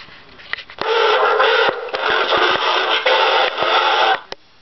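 Recorded Tusken Raider cry from an mp3, played loud through a small amplifier: one long, harsh yelling cry of about three seconds, with a short break about a second after it starts.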